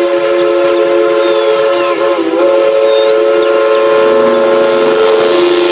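Steam locomotive whistle blowing one long, loud blast, several notes sounding together as a chord, wavering briefly about two seconds in.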